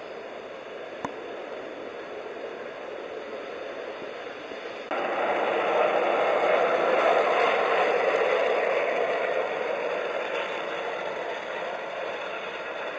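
A 5-inch gauge ride-on miniature train rolling along its track, a steady rushing of wheels on rail. It turns much louder about five seconds in as the train passes close, then slowly fades as it runs away. A single short click comes about one second in.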